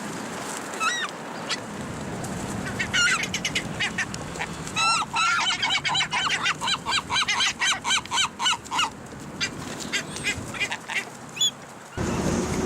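A flock of birds calling noisily while being fed bread, with scattered calls and then a fast run of repeated honking calls, about three a second, lasting several seconds.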